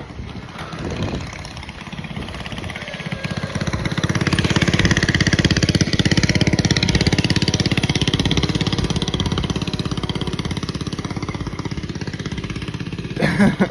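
A motor vehicle's engine passing by: it grows louder over the first few seconds, is loudest about five seconds in, then fades slowly away.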